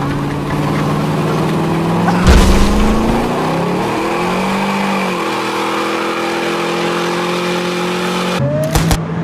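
Engine sound effect running steadily, its pitch rising and falling, with a heavy thud about two seconds in. Near the end it cuts to rapid machine-gun fire.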